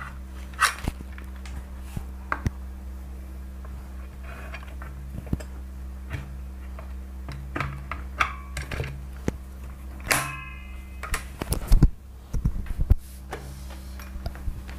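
Scattered clicks and knocks of plastic and metal parts as the motor head of a sliding mitre saw is fitted onto its base and rails by hand, with a cluster of louder knocks near the end. The saw is not running.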